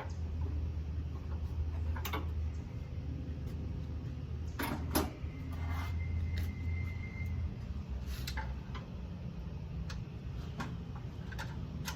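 Scattered metal knocks and clanks from tools and parts while an engine is being fitted to its mounts, about half a dozen sharp ones, over a steady low hum.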